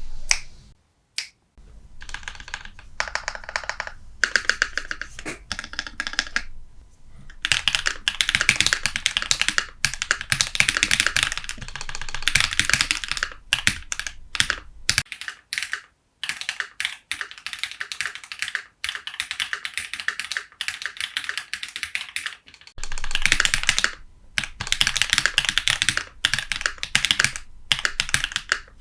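Typing on a Keychron Q2 aluminium mechanical keyboard with linear Akko CS Vintage White switches, tape-modded, with stock stabilisers lubed with 205. It goes in fast runs of dense keystrokes broken by brief pauses.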